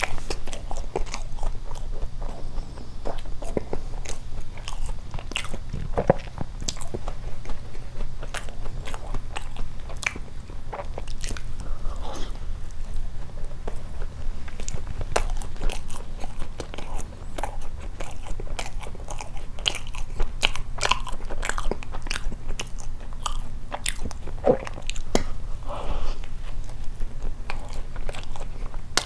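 Close-miked chewing of a soft cream-topped doughnut, with many small, irregular mouth clicks.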